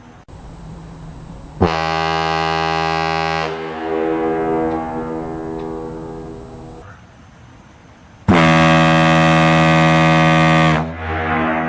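Ship's horn sounding two deep, steady blasts, a shorter one of about two seconds and then a longer, louder one of about two and a half seconds, each trailing off in an echo.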